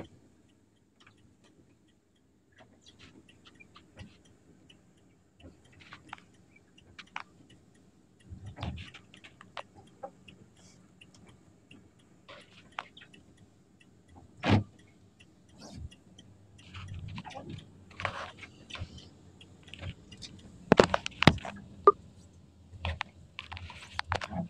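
Scattered clicks, rattles and knocks inside a vehicle cabin over a faint, steady low engine hum, with one loud knock about halfway through and a run of louder knocks near the end.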